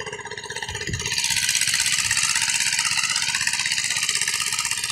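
Small engine of a water-well drilling rig running steadily with a fast, even pulse. It comes up louder about a second in.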